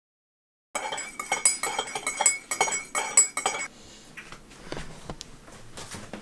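A metal teaspoon stirring tea in a ceramic mug, clinking rapidly against the sides for about three seconds; the clinking starts abruptly under a second in. Softer knocks follow as the mugs are picked up.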